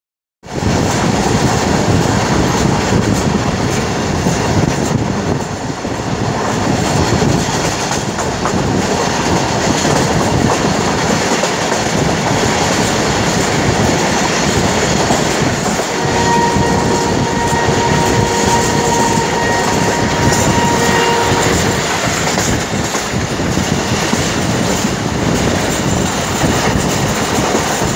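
Passenger train running at speed, heard from an open coach window: a loud, steady rumble of the wheels on the rails. About halfway through, a train horn sounds one steady note for about five seconds.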